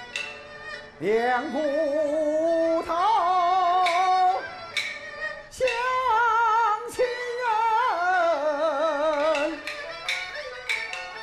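Han opera (Handiao Erhuang) singing: a solo voice holds long notes with a strong, wavering vibrato and slides up into each phrase. Sharp percussion strikes come in quick series before the voice enters and again near the end.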